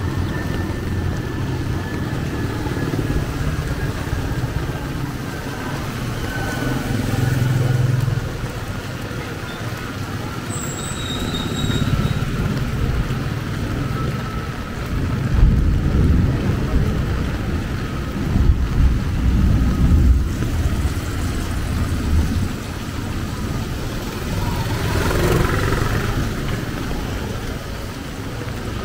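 Road traffic: motor vehicles and motorcycles passing, their engines rumbling in several swells, over a steady hiss.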